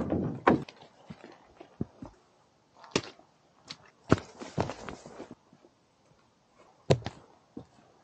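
Footsteps and scuffs on a dirt portage trail: a louder rustle at the start, then scattered, irregular soft thumps and knocks with quiet gaps between.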